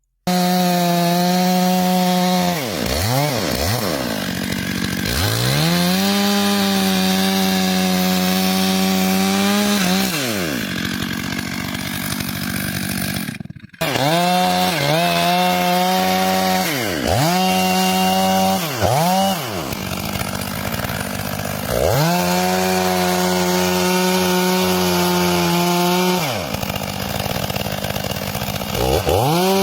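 Two-stroke chainsaw running at full throttle while cutting into wood. Its engine note drops sharply and climbs back several times as the throttle is let off and squeezed again. The sound cuts out for a moment about halfway through.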